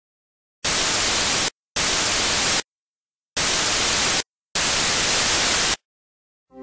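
Four bursts of plain white-noise hiss, in two pairs, each about a second long and starting and stopping abruptly. It is a synthetic sound effect for the capsule's attitude thrusters firing.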